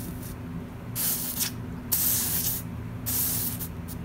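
A hot soldering iron tip is scrubbed back and forth on a sal ammoniac block, hissing and sizzling in three short strokes. The hot tip is being cleaned of dirt so that its heat will conduct to the solder again.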